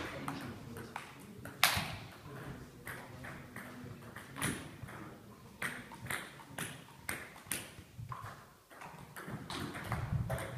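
Table tennis ball clicking off bats and the table during rallies: a series of sharp, irregularly spaced ticks, with a short lull near the end before play resumes.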